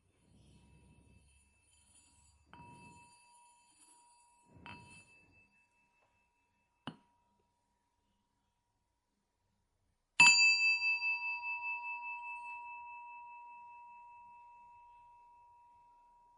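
A small metal bell struck once about ten seconds in, ringing at a high pitch and fading with a slow pulsing over several seconds. Before it come a few soft low rumbles, two faint touches of the same ring and a short click.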